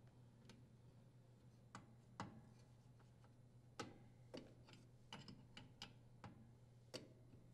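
About ten faint, light clicks and taps of a wrench and the braided water supply line's nut against the dishwasher's brass inlet valve fitting as the line is threaded on and tightened.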